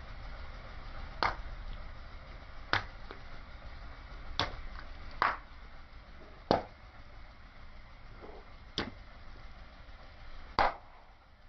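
Small water balloons bursting one by one under a slowly rolling car tyre: seven sharp pops with a brief splash, about one to two seconds apart, the last one the loudest.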